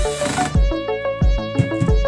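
Background music with a steady beat and melodic instrument notes.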